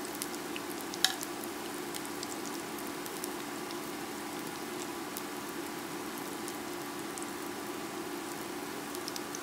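Chickpea burger patties shallow-frying in grape seed oil in a nonstick pan: a steady sizzle with scattered small crackles, and one sharp click about a second in.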